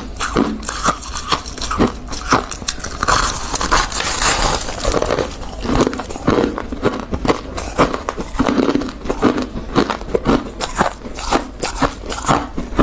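Close-miked crunching of refrozen freezer frost, chewed and squeezed by hand, making many crisp, irregular crunches in quick succession.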